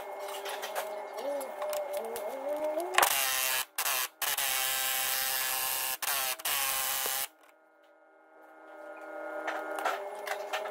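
Impact wrench (buzz gun) hammering on a rusty, seized front leaf-spring hanger bolt, working to crack it off. It starts suddenly about three seconds in, runs about four seconds with a few split-second breaks, and cuts off abruptly. The nut still has to be heated with a torch afterwards.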